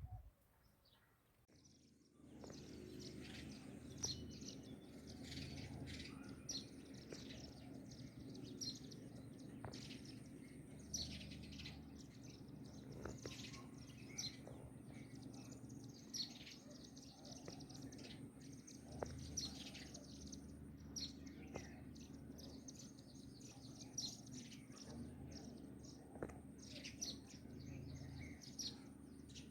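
Small birds chirping: many short, quick, falling chirps, several a second, over a steady low background hum.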